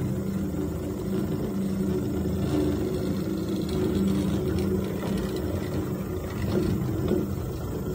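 Chairlift running: a steady mechanical hum and rumble from the moving haul cable and its wheels as the chair rides along.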